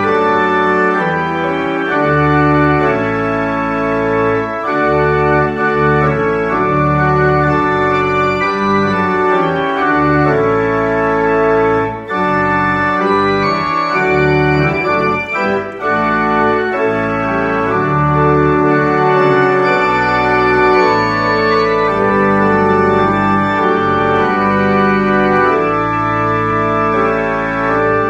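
Organ music playing slow, held chords over a steady bass line.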